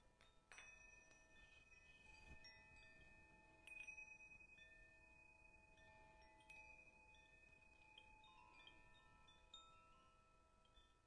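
Faint metal chimes struck one after another at many different pitches, each note ringing on and overlapping the others, with stronger strikes about half a second and about four seconds in.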